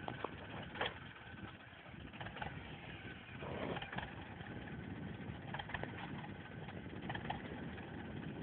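Tractor engine idling steadily while the seed drill stands, with a few short knocks and rustles from work at the drill.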